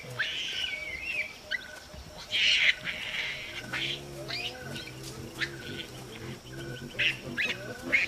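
Baby olive baboon yelling: a wavering high cry, then a string of short, sharp squeaks that each drop in pitch. Low grunting sounds underneath from about halfway.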